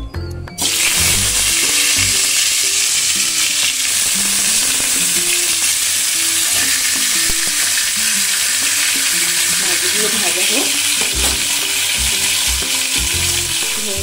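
Pieces of katla fish sizzling in hot oil in a black wok, the sizzle starting abruptly under a second in as they go into the pan and then holding as a steady frying hiss.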